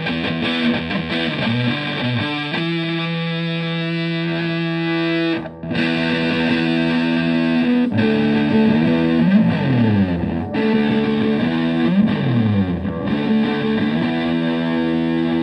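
Stratocaster electric guitar played through a Tone Bender MKIII fuzz pedal and a Twin Reverb–style combo amp: thick, fuzzy held notes and riffs. There is a brief break about five seconds in, and notes slide down in pitch twice in the second half.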